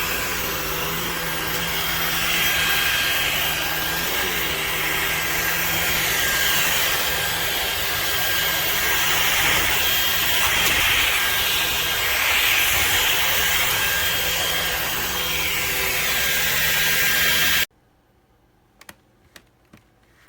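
Levoit cordless stick vacuum running steadily with a high motor whine, then switched off, stopping abruptly near the end. A few light clicks follow.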